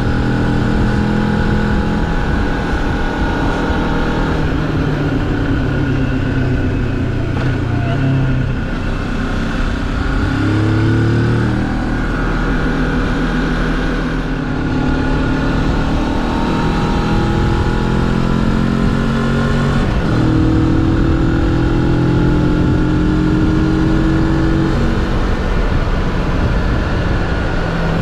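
Moto Morini X-Cape 650's parallel-twin engine running as the motorcycle is ridden at road speed. The engine note holds steady for stretches and shifts in pitch several times, rising around the middle, with throttle and gear changes.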